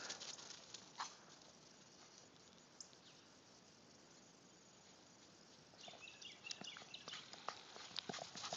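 Mostly near silence with faint outdoor ambience; from about two-thirds of the way in, soft crunching steps in snow start and grow louder toward the end.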